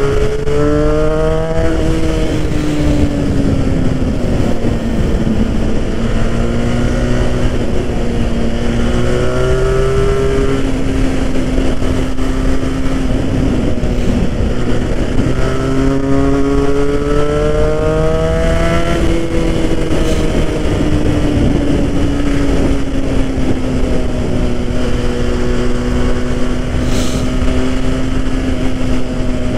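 Benelli 302R motorcycle's parallel-twin engine under way on the road, its pitch climbing and falling several times as the rider opens and eases the throttle. Heavy wind rush on the microphone runs underneath.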